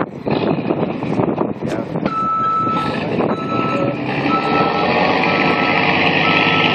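A vehicle's reversing alarm beeping at a steady pitch about once a second, five beeps starting about two seconds in, over engine noise that grows louder toward the end.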